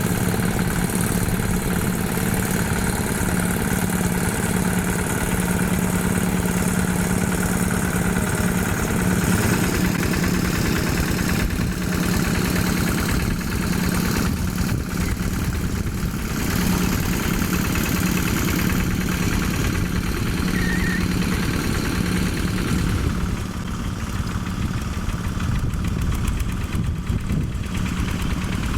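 Single-cylinder Yanmar diesel engine of a Quick G1000 hand tractor running steadily, becoming a little quieter about twenty-three seconds in.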